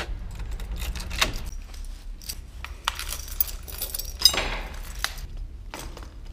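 A bunch of keys jangling, with clicks as a key works a metal door lock. Then the steel links of an ABUS folding bike lock clink and rattle as it is unfolded, loudest in a cluster of metallic ringing about four seconds in.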